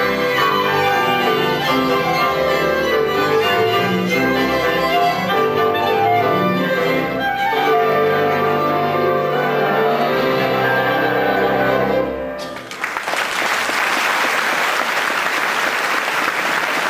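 Moravian cimbalom band, bowed fiddles over a struck cimbalom with double bass and clarinet, playing a sedlácká folk dance tune. The tune ends about twelve seconds in, and audience applause follows.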